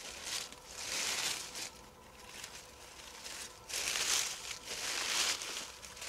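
Footsteps through fallen leaves on the forest floor, each step a rustling crunch: two steps, a pause of about two seconds, then two more.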